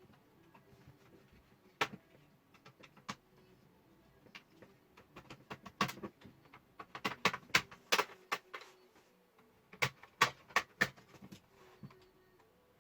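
Irregular sharp clicks and taps of plastic laptop parts and screws being handled and pried during disassembly, thickest about halfway through and again near the end.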